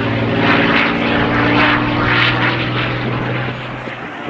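Supermarine Spitfire PR XI in its display, its Rolls-Royce Merlin V12 engine and propeller giving a loud, steady drone that fades away near the end.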